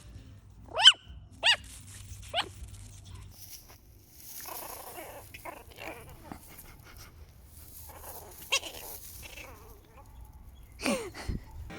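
Chihuahua puppy giving three short, high, squeaky yips in the first few seconds. Then comes a stretch of quieter, rougher grumbling noises, and a whine near the end that falls in pitch.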